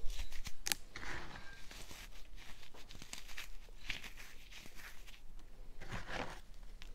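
Fingers crushing and squeezing crumbly baking soda: irregular soft crunches and crackles, with a sharp crackle just under a second in.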